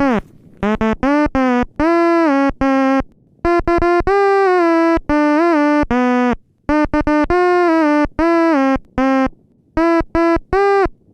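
Synthesizer playing a melody in short, quick notes mixed with longer held ones.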